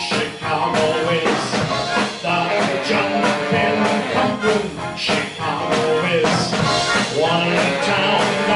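A live big band playing an instrumental passage: saxophone, trumpet and trombone sections over a drum kit with cymbals, with piano and double bass.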